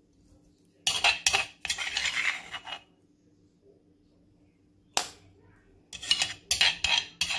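A metal spoon scrapes and clicks against a stone mortar as crushed garlic and black pepper paste is scooped out. There is a flurry of scraping about a second in, a single click around the middle, and a quicker run of scrapes and clinks near the end.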